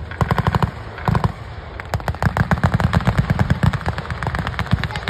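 Machine guns firing blanks in rapid bursts, about ten shots a second: a few short bursts, then a longer burst of nearly two seconds.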